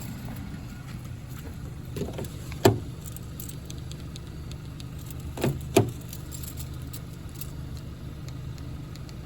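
Sharp clacks at a car, the loudest about two and a half seconds in and two close together near six seconds, over a steady low hum.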